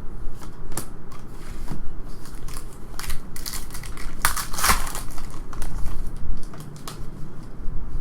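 Plastic-foil trading card pack wrapper crinkling and crackling as it is handled, with a denser, louder spell of crackling about four to five seconds in.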